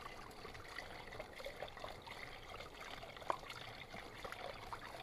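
Water trickling and dripping from a spring in the rocks as a 5-litre container is filled, with one sharper knock about three seconds in.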